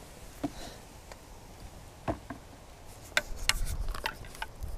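Scattered light clicks and taps from handling a fishing rod and reel, irregular rather than a steady reel wind, bunched together in the second half. A low wind rumble on the microphone comes in near the end.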